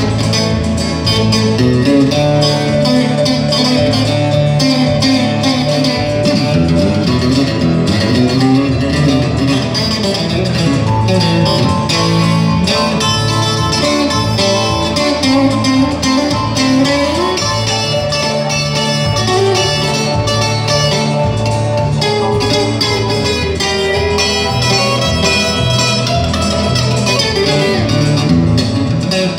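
Live country-gospel band playing an instrumental passage: amplified electric guitar picking a melody over electronic keyboard backing.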